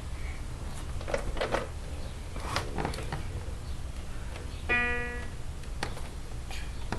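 Quiet background music with plucked guitar, over a low hum, with a few light knocks and one short, steady pitched tone about five seconds in.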